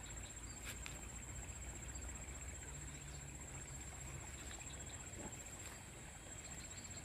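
Insects trilling steadily at a high pitch, over a low outdoor rumble, with a few faint clicks.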